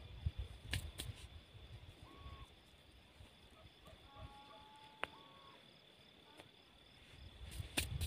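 Quiet field ambience while hands pat soil and stones over a small grave. Wind rumbles on the microphone at the start and end, a steady thin high insect-like tone runs throughout, and a short note comes about every three seconds. A few sharp clicks come from hands handling the soil and stones.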